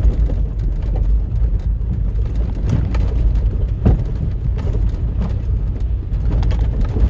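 Land Rover Freelander Td4's four-cylinder turbodiesel pulling steadily in second gear up a muddy, rutted track, heard from inside the cabin. Irregular knocks and clunks from the body and suspension over the bumps, the loudest about four seconds in.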